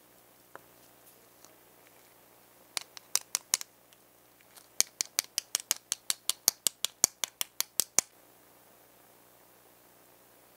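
A series of sharp, light clicks: a short run of about five, then a faster even run of about sixteen at roughly five a second that stops suddenly.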